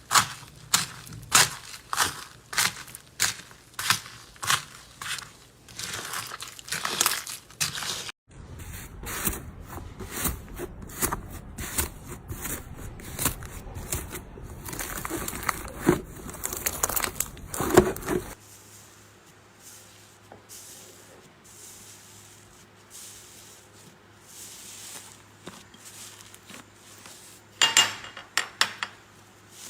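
Slime being squeezed and poked by hand: first a regular run of sharp pops, about two a second, then after an abrupt cut a dense crackling and crunching, then a quieter stretch of soft handling with a few more sharp pops near the end.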